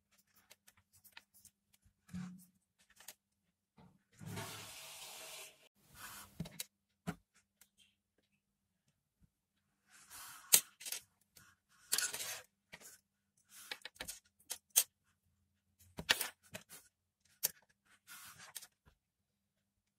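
Handling noise of earphone cables being moved and rubbed on a tabletop by hand: scattered light clicks and rustles, a longer rustle about four seconds in, and several sharper clicks in the second half.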